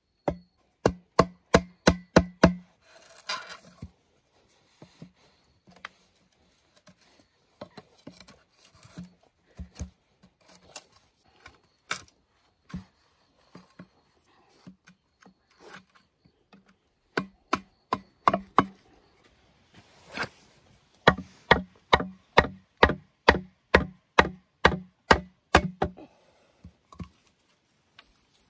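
A blade chopping bamboo in quick runs of sharp blows, about three strokes a second, each with a hollow ring from the bamboo tube. There are three runs (one at the start, a short one in the middle, a longer one near the end), with scattered lighter knocks between them.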